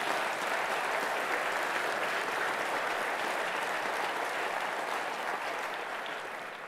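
A large audience applauding, the clapping slowly dying down near the end.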